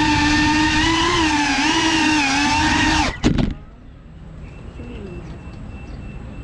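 FPV quadcopter's motors whining, the pitch wavering with the throttle. At about three seconds they cut off suddenly, with a brief clatter as the drone lands on the pavement.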